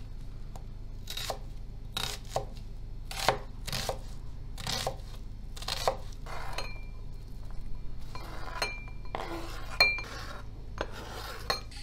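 Chef's knife dicing onion on a plastic cutting board: separate knocks of the blade on the board, about one or two a second. Near the end the knife scrapes the diced onion off the board into a bowl.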